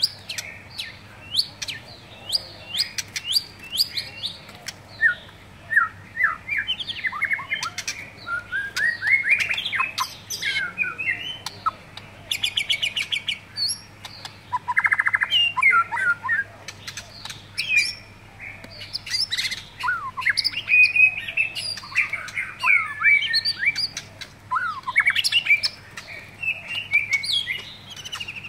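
White-rumped shama singing a long, varied song: rich whistled phrases, quick sweeping notes and fast rattling trills, with sharp clicks in between.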